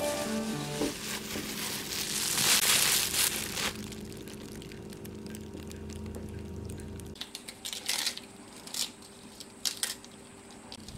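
Plastic bag crinkling loudly as the bag of dough is handled and set down, over a steady low hum that stops about seven seconds in. Near the end come a few short crisp snaps of lettuce leaves being torn into a bowl.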